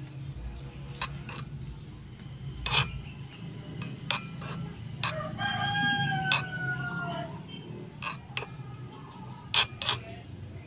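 Spatula scraping and knocking against a small metal wok as noodles and vegetables are stir-fried, with sharp knocks every second or two. About five seconds in, a rooster crows once, a slightly falling call lasting about two seconds.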